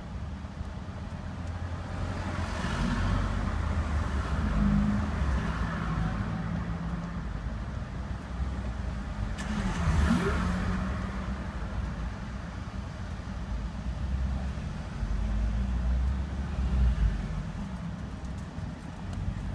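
Range Rover P38's 4.6-litre V8 engine running, its revs rising and falling a few times.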